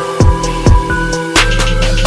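Background music: an electronic track with a steady beat of kick-drum and snare hits under held synth notes.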